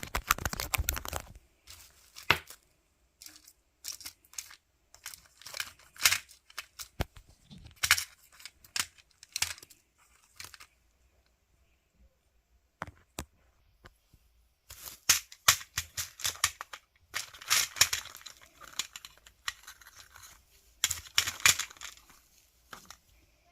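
Crinkling and tearing sounds, like material being torn or crumpled by hand, in short irregular bursts with a quiet stretch in the middle and busier crackling toward the end.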